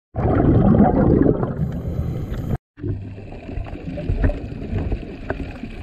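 Underwater water noise with gurgling bubbles, loudest in the first two and a half seconds. It cuts out abruptly, then comes back quieter with a few faint clicks.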